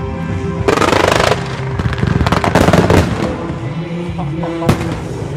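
Fireworks firing in rapid crackling volleys: a dense burst about a second in, a longer one around two to three seconds in, and a single sharp bang near the end, over background music with sustained tones.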